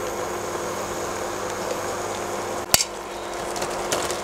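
Creamy sauce sizzling steadily in a pan while a metal spoon stirs it, with one sharp clack of the spoon against the pan a little under three seconds in.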